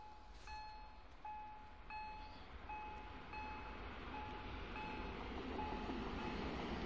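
Level-crossing warning signal sounding a short electronic ding about once every 0.7 s. Beneath it, the rumble of an approaching train builds steadily, loudest near the end.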